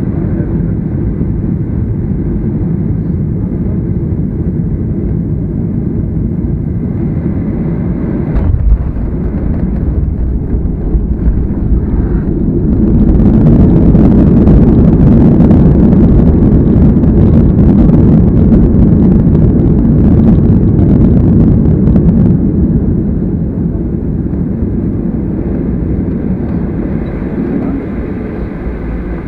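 Inside the cabin of a Boeing 737-800 landing: steady airframe and engine noise, a thump about eight seconds in as the wheels touch down, then the CFM56 engines running up loud in reverse thrust for about ten seconds before the noise dies away as the jet slows on the runway.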